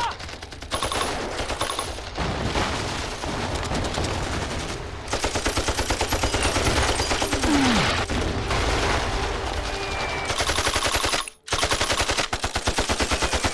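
Battle gunfire in a war-film soundtrack: scattered rifle shots, then sustained rapid machine-gun fire from about five seconds in, cutting off for a moment near the end before resuming.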